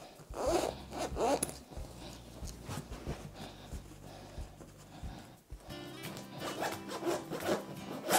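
Zipper on a fabric cushion cover being pulled in short strokes, with fabric rubbing as the cushion is handled. Background music comes in a little past halfway.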